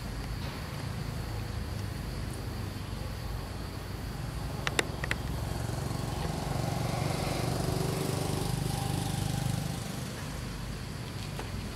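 A motor vehicle's engine passing at a distance: a low steady drone that grows louder from about five seconds in and fades again near ten seconds. Two sharp clicks come just before it swells.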